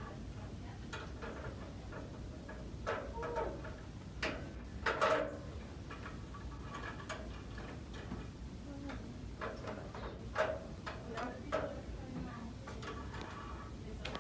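Scattered light metal clicks and knocks from a physician's balance scale's height rod being slid up and set on the head for a height reading.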